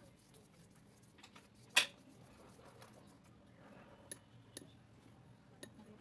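One sharp clack of a hard object knocking on a hard surface a little under two seconds in, then a few faint ticks and clicks over a low room hum.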